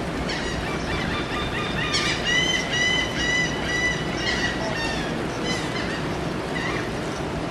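Gulls calling: a run of short, repeated, nasal calls, loudest in the middle, with scattered single calls before and after, over a steady rush of surf and wind.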